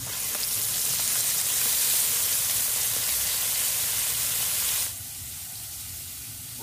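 Battered frogs deep-frying in hot oil in a pan, a loud steady sizzle that drops to a quieter sizzle about five seconds in.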